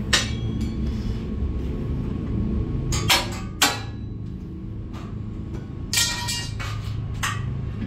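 Metal clanks and clinks from a long steel bar being levered against a truck's rear axle: sharp knocks about three seconds in and again half a second later, then a ringing clink about six seconds in. A steady low hum runs underneath.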